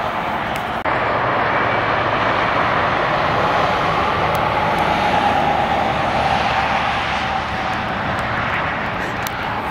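Highway traffic on a steep interstate grade: a tractor-trailer's diesel engine and tyres droning steadily as it passes, with a brief dip about a second in.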